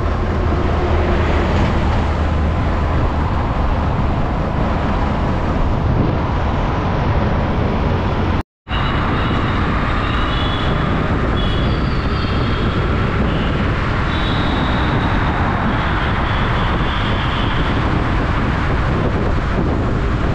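Steady road and wind noise from travelling on a road among traffic, cutting out briefly about eight seconds in. After that, short high tones come through the noise now and then.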